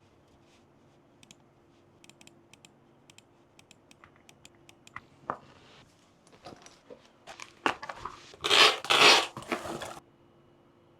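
Keyboard packaging being handled and opened: light clicks and taps at first, then louder knocks and two loud bursts of rustling and tearing about eight to nine seconds in.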